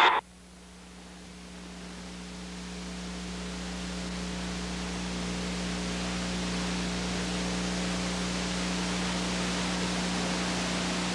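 Steady tape hiss with a low electrical hum, the blank audio track of an old videotape, slowly growing louder over the first several seconds and then holding steady.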